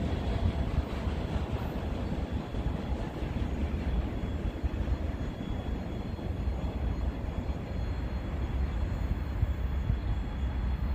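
Wind buffeting the microphone, with the low rumble of a distant train on the line.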